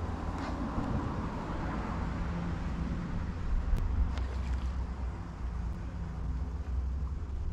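Steady low rumble with a faint engine-like hum, mixed with wind buffeting the microphone; a few faint ticks about four seconds in.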